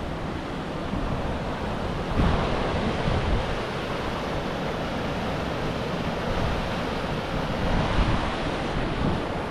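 Steady rush of flowing stream water, with wind buffeting the microphone in gusts about two seconds in and again near the end.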